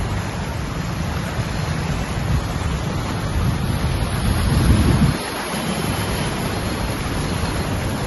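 Steady rushing noise of floodwater mixed with wind buffeting the microphone, as from a vehicle moving through a flooded street. The low rumble drops off suddenly about five seconds in.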